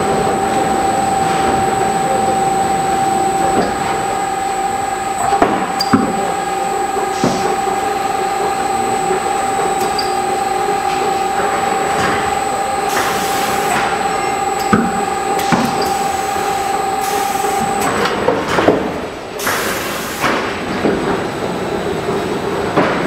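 FARBAL FM5D automatic film wrapping machine running: a steady motor whine that stops about three quarters of the way through, with scattered clunks and several short hisses as the pneumatic carriage moves.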